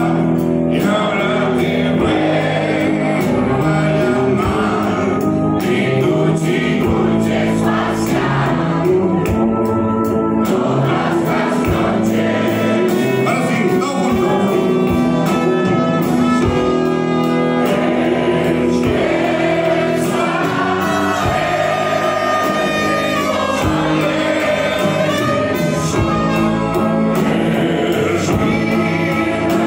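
Live band playing a song with singing: guitars, bass, drums and keyboards through a club PA, heard from within the audience.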